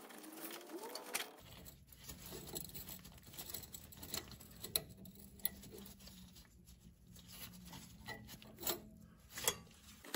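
Hand tools and metal parts being handled while a suspension bracket is unbolted: faint scattered clicks and light knocks, with a few squeaks in the first second. A low steady hum sets in about a second and a half in.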